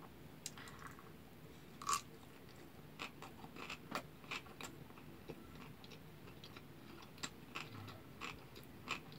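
A person chewing a big mouthful of kimbap, the Korean seaweed-wrapped rice roll. The chewing is faint, with irregular small wet clicks and smacks of the mouth.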